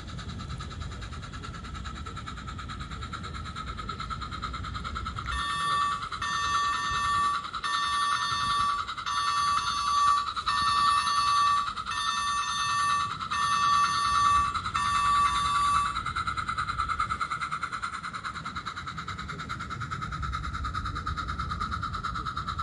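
Small garden-gauge model locomotive and coach running along the track, with a steady high whine throughout. From about five seconds in until about sixteen seconds, a repeated pitched beeping sounds roughly once every second, a dozen or so times, louder than the rest.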